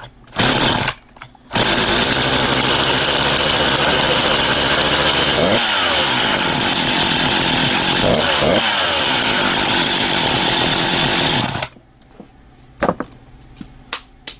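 Husqvarna 350 two-stroke chainsaw pull-started: a few short bursts, then it catches about a second and a half in and runs steadily at high speed rather than idling, its pitch dipping briefly twice, until it cuts off suddenly near the end. The high speed comes from the choke's plastic linkage still holding the throttle slightly open after the choke is pushed in, which is normal for this model.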